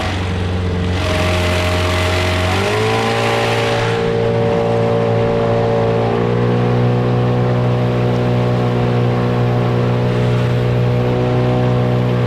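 Gladiator 9.8 outboard motor running under way, new and being run in; its engine speed steps up twice, about two and a half seconds in and again about six seconds in. A rushing hiss runs under it for the first few seconds.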